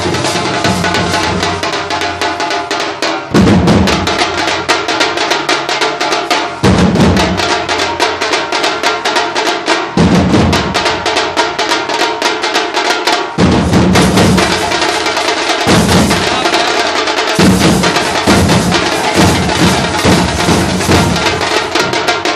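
Drum troupe playing stick-beaten barrel drums in a fast, dense rhythm, with heavy low unison accents about every three seconds that come closer together in the last third.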